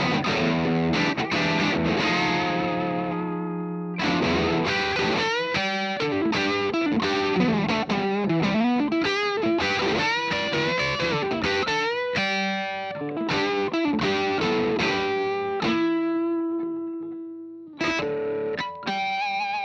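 Spear Hologram electric guitar played through distortion. It opens on a held chord that rings out, then moves into lead lines with string bends and vibrato. A long single note fades away before two or three chords are struck near the end.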